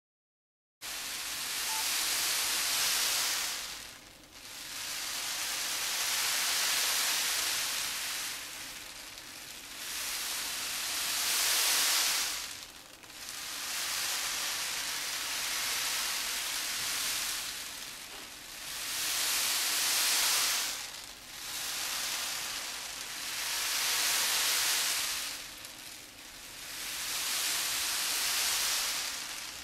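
Dried azuki beans rolled back and forth as a traditional Japanese sound effect for waves, a hissing rush that swells and fades about every four seconds like surf. It starts suddenly just under a second in.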